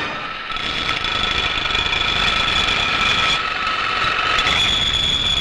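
Electric workshop machine running with a steady high whine over a rough grinding hiss. The whine drops out about three seconds in and comes back a second later.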